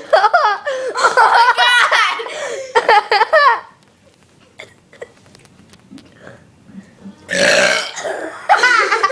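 Loud, warbling burps mixed with giggling for the first few seconds, then a lull. Another loud burst of burping and laughter comes near the end.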